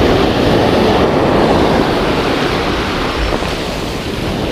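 Rough surf breaking and washing in over a dark sand-and-pebble beach: a steady rush of water.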